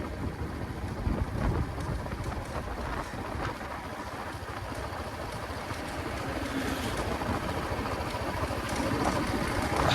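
Royal Enfield Classic 350's single-cylinder engine running at riding speed, with wind rushing over the microphone. It grows a little louder near the end.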